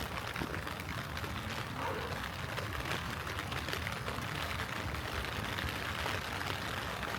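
Light rain falling steadily, a soft even hiss with scattered drips, over a low rumble.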